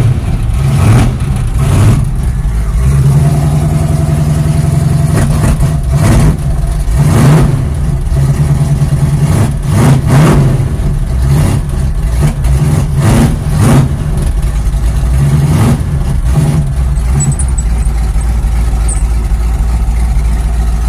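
Ford Pinto engine running just after a cold start, after sitting about four months, with a steady low drone and several short uneven surges in speed. About two-thirds of the way through, the sound steadies and drops lower.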